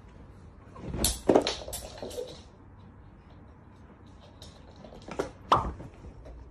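Several sharp knocks and clatters in two groups: a run of them about a second in, then two single, sharper ones about five seconds in.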